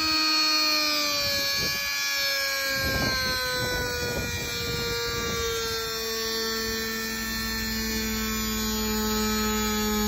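A small electric motor whining steadily, its pitch slowly falling, with a few rough knocks or scrapes about three to five seconds in.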